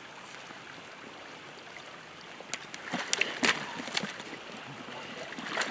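Pond water sloshing and splashing as a shot beaver is handled in the shallows at the bank, with dry reeds and brush crackling. The first two seconds or so are quiet, then comes a run of sharp crackles and splashes.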